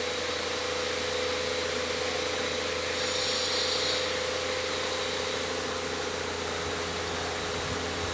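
Electric fan running steadily: an even whooshing hiss of moving air with a steady motor hum, the hiss briefly a little brighter about three seconds in.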